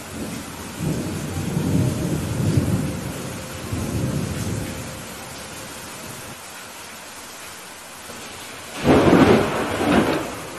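Steady rain with thunder. A low rolling rumble starts about a second in and fades after a few seconds. Near the end comes a sudden, louder thunderclap.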